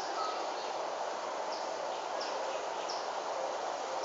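Outdoor ambience: a steady hiss with a bird chirping a few short, high notes, spaced about half a second to a second apart.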